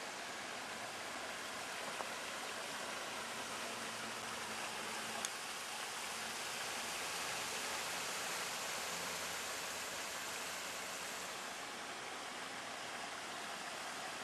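Steady rushing of a flowing mountain stream, with two small clicks about two and five seconds in.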